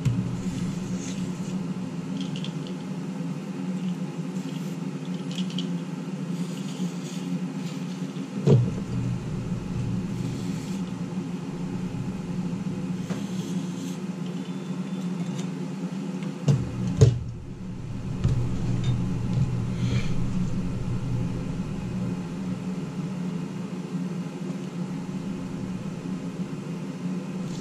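Ventilation (fume extractor) fan running with a steady hum, with several short hissing bursts of aerosol contact cleaner being sprayed on a laptop motherboard's connectors. A knock about eight seconds in and two more about seventeen seconds in.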